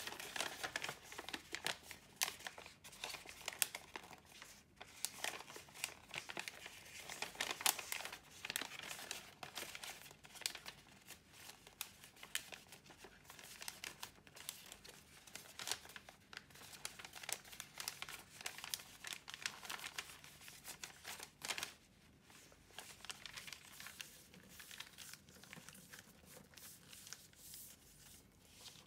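A 35 cm square sheet of origami paper being handled and folded along its pre-creased lines: dense crinkling and crackling with sharp snaps as the creases are pressed. It thins out to softer rustling over the last several seconds.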